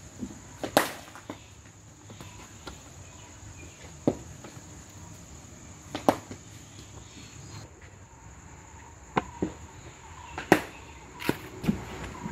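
Sharp single knocks of a cricket bat striking the ball and the ball landing on the artificial turf of a practice net, spread a few seconds apart, the loudest about ten and a half seconds in. A steady high hiss runs underneath and weakens after about seven seconds.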